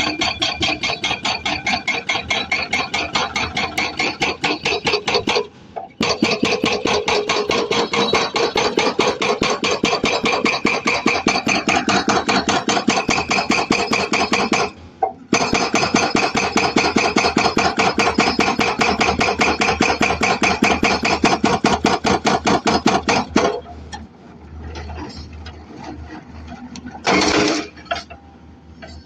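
Hydraulic breaker on an excavator hammering rapidly and evenly, with two short pauses. It gives way to quieter, uneven machine noise near the end.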